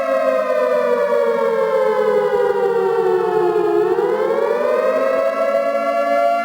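Civil defense siren wailing: its pitch falls slowly for about four seconds, then rises again near the end.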